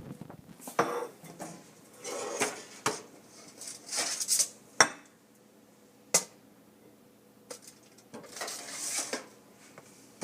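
Frozen chicken nuggets being put onto a toaster oven's small metal tray, with metal tongs clinking and scraping against it. The scrapes and rattles come in several short bursts, broken by a few sharp clacks.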